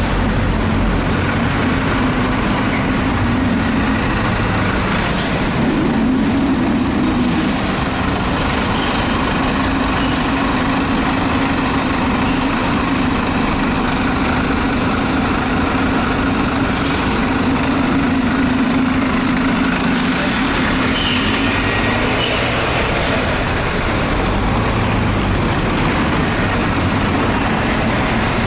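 Interior of a Volvo B7TL double-decker bus under way: a loud, steady drone with the very loud suction noise the bus is making, which weakens slightly near the end, plus occasional knocks and rattles. The uploader takes the noise for a sign of poor maintenance.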